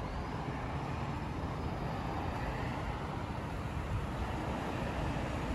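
Street traffic: cars and a motor scooter driving past, a steady rush of engine and tyre noise.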